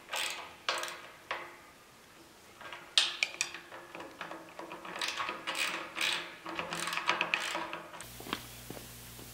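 A 3 hp electric motor being set down and shifted on a steel motor mount plate: a run of uneven metal clunks and knocks, the loudest about three seconds in, with a busy cluster in the middle, stopping about eight seconds in.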